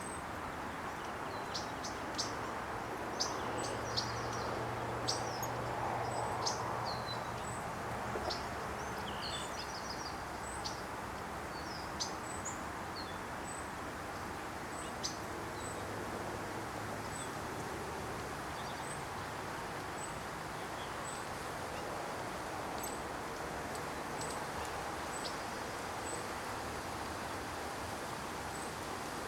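Birds chirping over a steady background noise. Short high chirps cluster in the first several seconds, and a faint high note repeats at an even pace of about once a second throughout.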